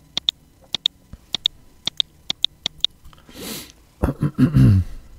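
Computer mouse clicked about six times in quick press-and-release pairs, paging through a score on screen. Then an audible breath, and near the end a brief wordless sound from a man's voice.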